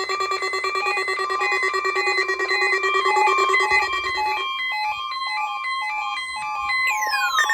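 Synthesized electronic tones: a steady buzzy drone under a rapid stepping pattern of beeps at changing pitches. The drone drops out a little past halfway, and a falling electronic sweep starts near the end.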